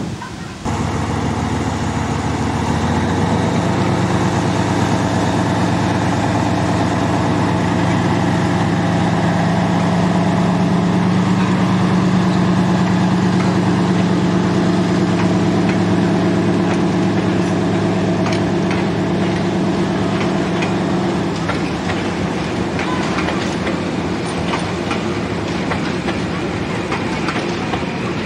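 Narrow-gauge diesel locomotive's engine running under load as it hauls its coaches past, the hum stepping up about three seconds in and fading after about twenty seconds. The coach wheels click over the rail joints, more plainly near the end.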